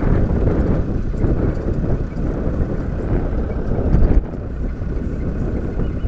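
Open-sided safari vehicle driving over grassland: the engine runs under heavy wind rumble on the microphone, with a brief louder peak about four seconds in.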